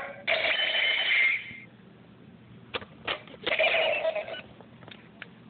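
Electronic sound effects from a battery-powered light-up Power Rangers toy. A burst of about a second and a half comes near the start, then a couple of clicks, then a second, shorter burst around the middle.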